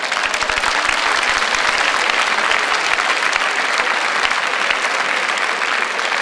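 Large theatre audience applauding: dense, steady clapping from many hands.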